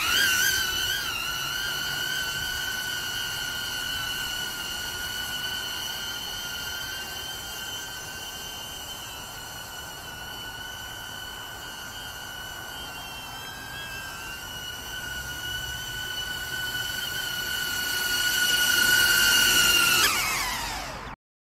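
HoverAir X1 palm-sized drone's propellers whining: the pitch rises as the rotors spin up at hand launch, then holds a steady high whine in flight. It grows louder near the end as the drone returns, and falls away as the rotors spin down on landing in the palm.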